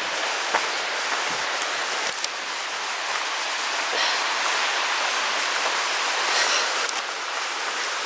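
The East Lyn River rushing over rocks, heard as a steady hiss of running water, with a few faint footsteps crunching on a gravel path.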